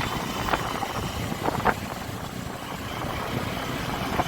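Honda SP125's single-cylinder 125 cc engine running as the motorcycle is ridden, with steady road and wind noise. There are a few short sharp sounds, the clearest just under two seconds in.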